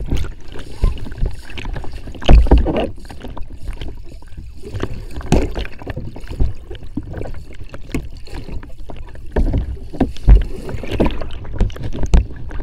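Water churning and splashing around a capsized sea kayak, heard muffled through a deck camera under water, with bubbling and irregular dull thumps; the heaviest thumps come about two seconds in and twice near the end.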